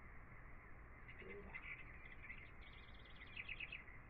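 Faint birdsong: rapid runs of short, high chirping notes, starting about a second in and stopping shortly before the end.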